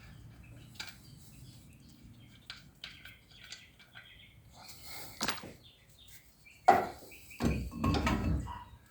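Brake caliper and its bolts being handled against the steering knuckle: scattered light metal clicks and taps, a sharp knock about two-thirds of the way in, then a short stretch of heavier clunking and clattering.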